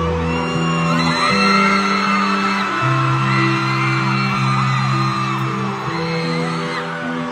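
Music: slow held chords changing about every second and a half, with a high, wavering sung or whooping vocal line over them.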